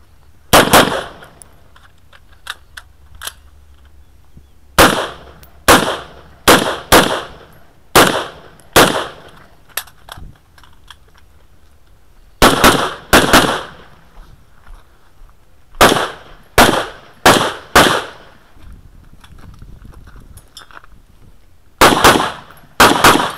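Semi-automatic fire from an AR-style carbine: about twenty sharp shots, mostly in quick pairs, in strings separated by pauses of a few seconds, each shot with a short echo.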